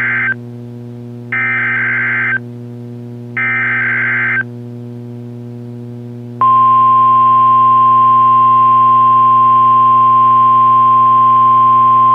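NOAA Weather Radio test signal: three screechy bursts of Emergency Alert System SAME header data, each about a second long and about two seconds apart. After a short pause comes the steady 1050 Hz warning alarm tone, which starts and holds. A constant low hum from the radio reception runs underneath.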